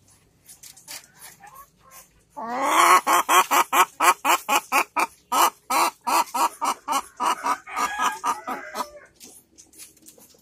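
Domestic village hen (ayam kampung) clucking in a rapid run of short calls, about four or five a second, that starts loud a couple of seconds in and trails off near the end. It is the pre-laying nesting call of a hen looking for a comfortable place to lay, a sign that she is about to lay an egg.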